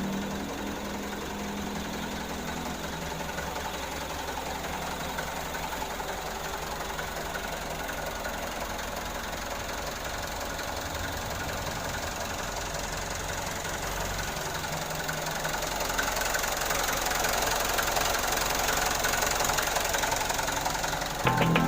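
An engine running steadily, growing somewhat louder about three-quarters of the way through.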